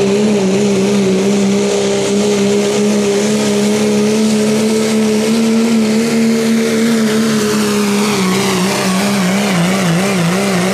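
Diesel pickup engine at full throttle while pulling a weight-transfer sled, holding one steady high pitch. Near the end the pitch wavers up and down as the load comes on.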